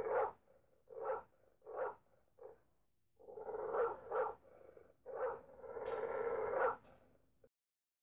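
Pit bull barking: four short single barks about every second, then two longer, drawn-out barking calls. The sound cuts off abruptly near the end.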